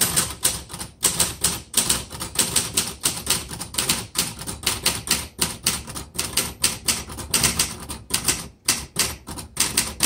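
Steady, rapid typing on a 1973 Facit Odhner all-metal manual typewriter: sharp clacks of the typebars striking the platen, about four or five a second.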